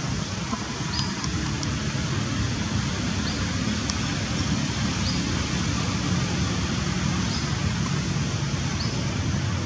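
Steady outdoor background noise with a low rumble, and a short high chirp repeating about every two seconds.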